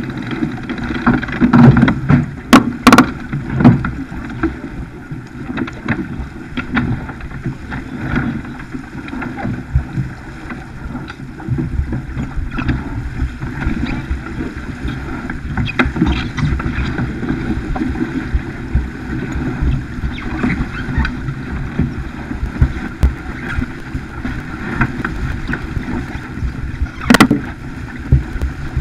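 Water rushing along the hull of a Farr 280 racing sailboat under sail, with wind buffeting the microphone. A few sharp knocks stand out a few seconds in and again near the end.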